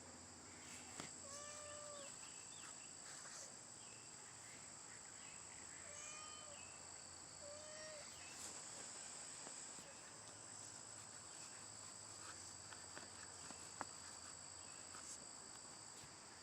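Faint, steady high-pitched insect drone, with a few brief faint chirps.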